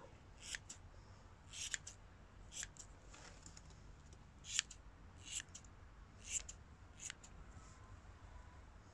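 Small scissors snipping through a Merino guinea pig's long, matted curly fur: about ten short, crisp snips at uneven intervals, thinning out near the end.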